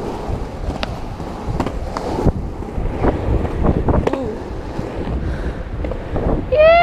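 Skateboard wheels rolling fast over a paved path with a steady rumble and sharp clicks over pavement joints, and wind buffeting the microphone. Near the end a short, loud, high cry rises and then falls in pitch.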